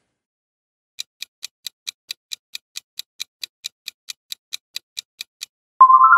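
Clock-like ticking sound effect of a quiz countdown timer, about four to five ticks a second for several seconds. Near the end a rising chime sounds as the answer is revealed.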